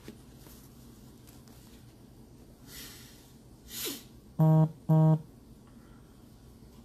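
A breath, then two short identical electronic buzzes about half a second apart, each steady and low in pitch, starting and stopping sharply.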